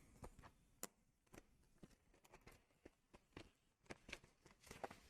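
Near silence with faint, irregular light clicks and taps from hands handling a MacBook Air laptop, with a slightly sharper tick about a second in and a small cluster of taps near the end.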